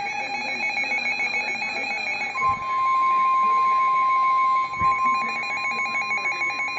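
Severe thunderstorm warning alert on NOAA Weather Radio: an electronic alarm beeping in rapid pulses, with the steady, louder warning alarm tone near 1 kHz sounding over it for about two seconds, starting about two and a half seconds in.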